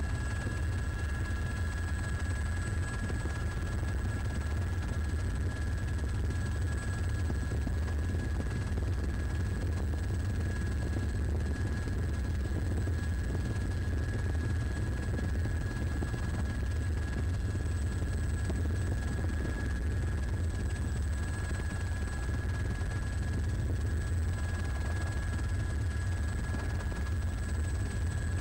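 Helicopter heard from on board: a steady, unbroken drone of rotor and engine, heaviest in the low end, with thin steady high tones over it.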